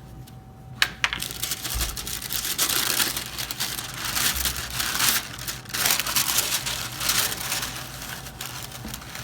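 Packaging being handled while a shoe box is unpacked: continuous crinkling and rustling, with a sharp click a little under a second in.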